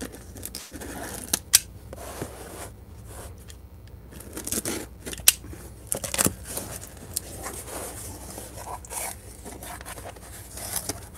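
Utility knife slitting the packing tape on a cardboard shipping box, then the cardboard flaps being pulled open: a run of irregular scrapes, rips and sharp clicks.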